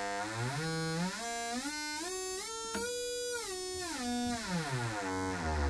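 Oscillator tone from a Rohde & Schwarz UBM tunable indicating amplifier run as a generator through its feedback control, a buzzy tone with many overtones. As the tuning dial is turned it sweeps up in small steps from a low hum to a mid pitch over about three seconds, then back down to the low hum.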